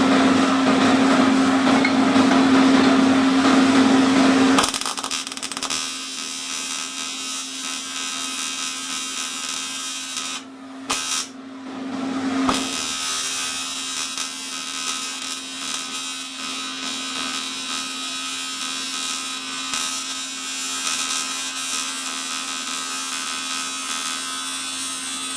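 AC TIG welding arc buzzing steadily on an aluminium motorcycle crankcase casting, loud for the first four and a half seconds and then quieter, with two brief breaks a little after ten seconds in. The weld is not taking as well as expected on this casting.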